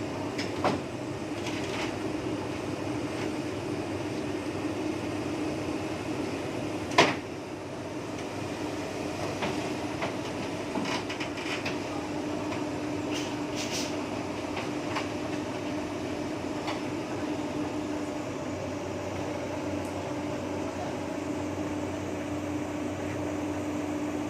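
Heavy diesel engine running steadily, with scattered sharp metal clanks, the loudest about seven seconds in.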